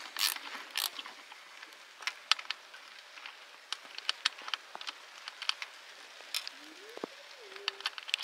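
Ratchet spanner clicking through a couple of strokes on the awning bracket's bolt, then scattered small metallic clicks and taps as the nut and washers are worked by hand. Near the end a short tone rises and falls.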